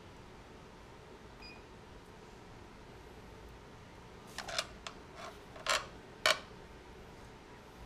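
A run of about six sharp mechanical clicks about halfway in, over a faint steady machine hum, from hands working the controls of a small metal lathe as a boring bar is set up.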